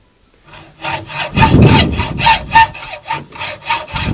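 Hacksaw cutting through a copper pipe: quick rasping strokes, about four a second, starting half a second in, with a low rumble under the strokes about a second and a half in.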